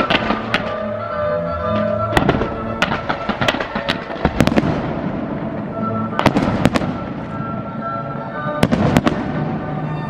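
Fireworks going off: a series of sharp bangs at irregular intervals, some followed by crackling, with music playing throughout.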